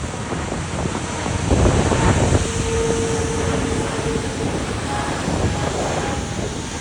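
Wind buffeting the microphone over the rumble of jet aircraft engines at an airport, with a stronger gust about a second and a half in and a brief steady whine in the middle.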